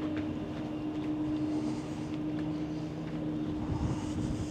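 Car ferry's engines and machinery running under way, a steady drone with one constant held tone.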